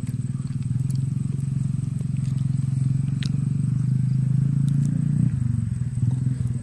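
A small engine running steadily, a low pulsing rumble that wavers briefly about five seconds in.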